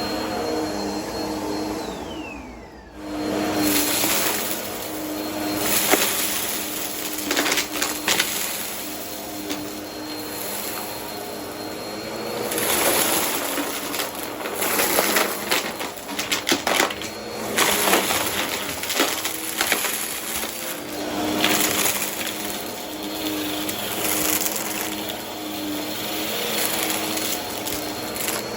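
Vacuum cleaner running over carpet, with a steady high motor whine and a dense, irregular crackle and clicking of crunchy debris being sucked up. About two seconds in, the whine falls in pitch and the sound dips briefly before the machine picks back up.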